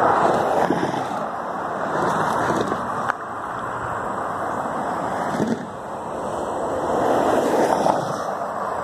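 Highway traffic passing at speed: a steady rush of tyre and engine noise that swells as vehicles go by, loudest near the start and again about seven to eight seconds in.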